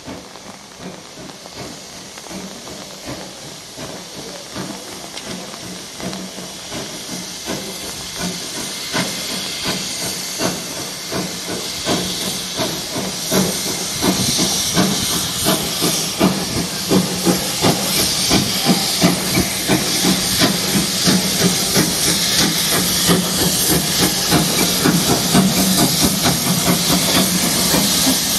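Steam locomotive working slowly towards the listener, with a steady rhythm of exhaust beats over loud steam hiss from low at the front of the engine, typical of open cylinder drain cocks. The whole sound grows steadily louder as it approaches.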